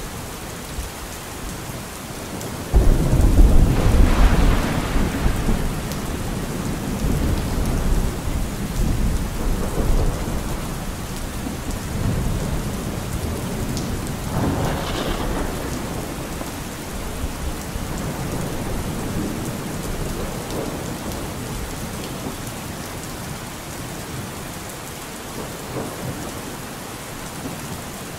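Steady rain with thunder: a sudden loud, low rumble about three seconds in that dies away over several seconds, and a smaller rumble near the middle.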